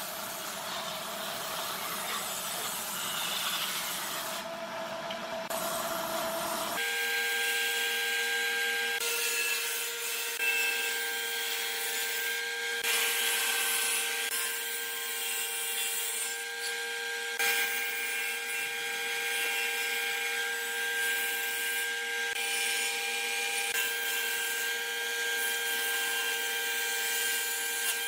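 Table saw running and cutting through wooden boards. About seven seconds in, the sound changes abruptly: the low rumble drops out and a steady whine from the spinning blade takes over, with the sound swelling each time the wood is fed through.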